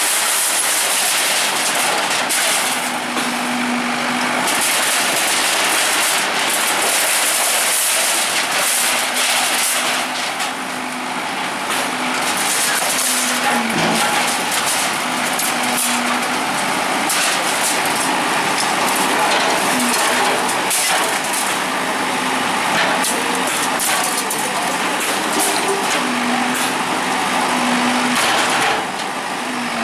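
Bulldozer at work: its diesel engine running, its note coming and going, under a steady harsh rushing noise.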